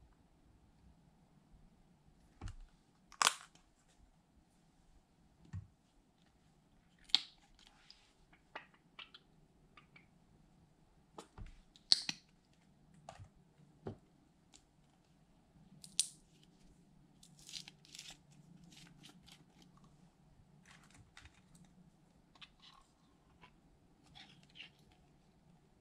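Scattered sharp clicks and taps of small plastic bottles, caps and tubes being handled, opened and set down on a stone countertop beside glass dishes, with softer ticks in between over a faint steady room hum.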